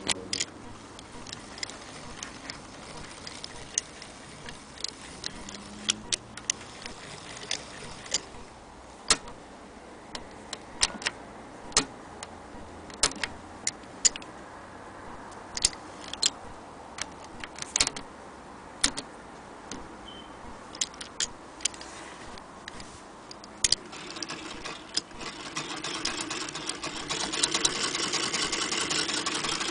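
Frister & Rossmann hand-crank sewing machine: scattered sharp clicks and taps as its parts are handled, then, about 25 seconds in, a steady fast rhythmic clatter as it is cranked and runs.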